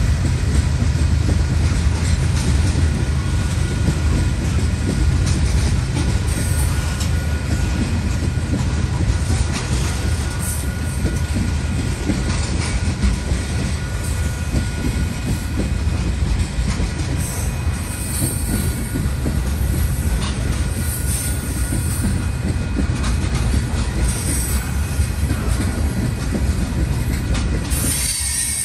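Freight train of tank cars rolling past, a continuous rumble of steel wheels on the rails with faint steady high tones above it.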